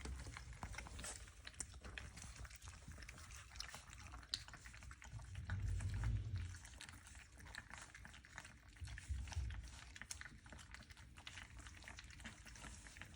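Australian Labradoodle puppies lapping and slurping puppy mush from a pan at their first weaning feed: a faint, busy patter of small wet clicks and smacks. Two dull low bumps come about halfway through and again near the end.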